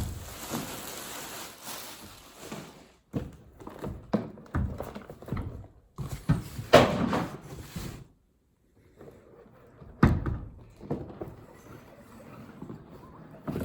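Cardboard box and packing material being handled and opened: scattered rustling and knocks, with louder thumps about seven and about ten seconds in.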